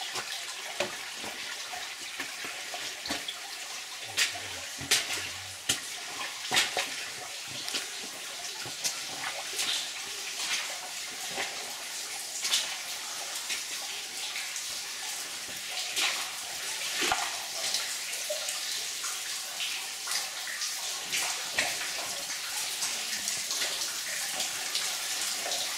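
Footsteps wading through water on a flooded mine tunnel floor, splashing at an uneven walking pace, over a steady hiss of running water.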